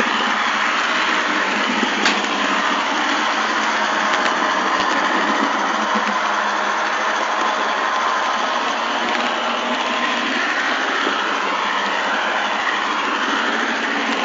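Model train running steadily along the track, its small electric motor and gears whirring and wheels rolling on the rails, heard from aboard the train; a single sharp click about two seconds in.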